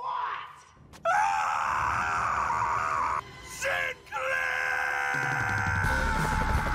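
A cartoon man's voice screaming in rage in long, drawn-out held screams, with brief breaks between them. Music with a low bass comes in about five seconds in.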